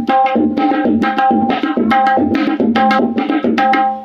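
Tabla played in a fast, even chugging rhythm that imitates a train, about five strokes a second, the right-hand drum ringing at a steady pitch over the left-hand bass. It is played as fast as the player can manage.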